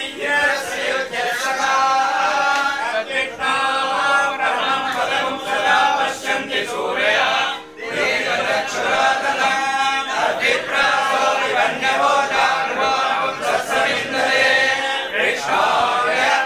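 A group of men chanting hymns together in unison, without instruments, accompanying the poornahuthi (the final offering into the sacred fire). The chant runs on with one short break about eight seconds in.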